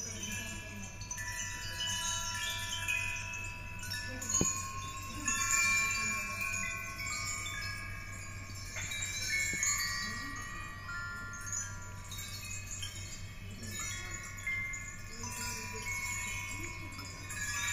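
Sound sculpture ringing like chimes: many high, sustained metallic tones at different pitches struck one after another and overlapping as they fade, over a steady low hum. A single sharp tap is heard about four and a half seconds in.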